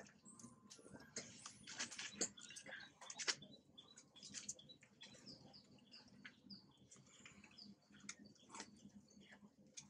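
Faint high-pitched chirps that dip in pitch, about two a second through the middle, with scattered soft clicks.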